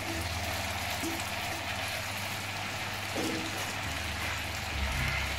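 Onion with freshly added grated carrot and root vegetables frying in hot fat in a stainless-steel braising pan: a steady sizzle over a steady low hum.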